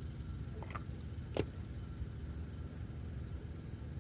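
A steady low engine drone runs throughout. Two short high squeaks stand out, a faint one a little under a second in and a sharper, louder one about a second and a half in.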